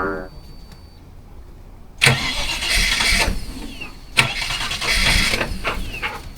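Holden VT Commodore's 304 V8 being cranked by its starter in two short attempts, about two seconds in and again about four seconds in, each starting suddenly and dying away after a second or two, after eight years of sitting and a fuel line repair.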